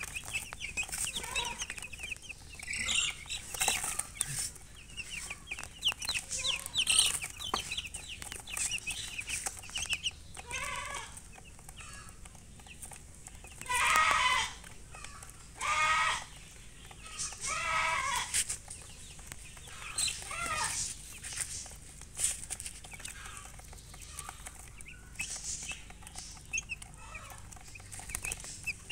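Baby chicks peeping rapidly and steadily. Louder clucks and calls from a hen come in several spells through the middle.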